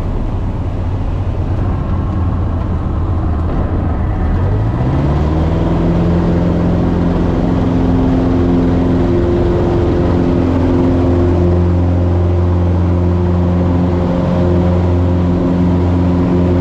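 Cessna 150H's Continental O-200 four-cylinder engine and airflow heard from inside the cockpit: a rough low rumble at reduced power, then about five seconds in the throttle opens and the engine note rises and settles into a steady drone at power, as when power is restored after a simulated engine failure.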